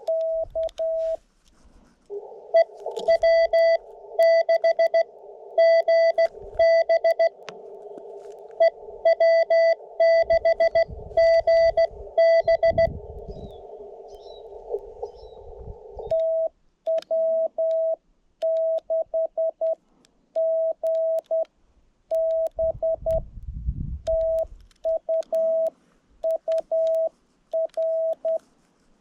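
Morse code (CW) from an HF amateur radio: a steady tone of about 650 Hz keyed on and off in dots and dashes. From about two seconds in, a distant station's signal is heard through the rig's narrow CW filter with a band of receiver hiss behind it. From about sixteen seconds in, the tone is clean keyed sidetone as the operator sends her reply. A few low rumbles come through as well.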